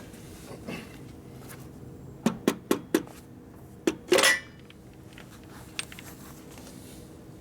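Light metal taps on the main shaft of an Ironhead Sportster transmission: four quick knocks a little past two seconds in, then one more and a louder, slightly longer metallic clank about four seconds in. The tapping is part of setting the shaft clearance.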